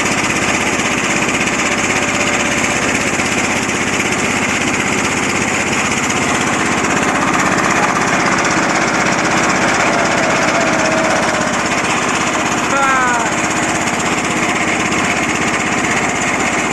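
A small boat's engine running steadily and loud, with a fast, even chugging.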